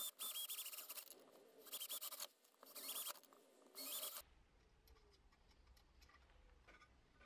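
Power drill boring holes through aluminium checker plate in four short bursts, with a high motor whine, over the first four seconds or so. Then only faint clicks of handling.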